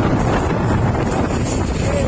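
Steady rumble of a moving truck, with wind buffeting the microphone.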